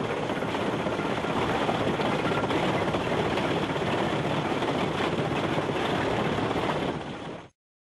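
Steady mechanical din of a Nordberg LT1213 mobile impact crusher working on site, with an excavator and wheel loader also running. It fades out and cuts off near the end.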